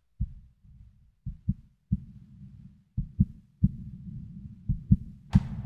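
Heartbeat sound effect: deep double thumps about every second and a half over a low rumble. About five seconds in, a sudden loud crash sets off the music.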